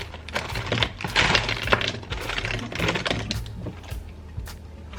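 Mixed berries tipped into a cup of crushed ice, clattering and clicking irregularly.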